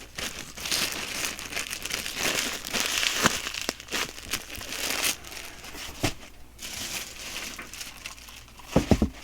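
Packaging crinkling and rustling as it is handled, with irregular small crackles, and a few dull knocks near the end.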